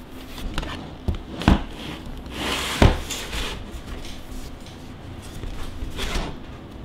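Hands handling a folding plastic mini photo studio box and its USB-powered LED panel: three sharp plastic knocks within the first three seconds, with rubbing and rustling between, then lighter taps near the end.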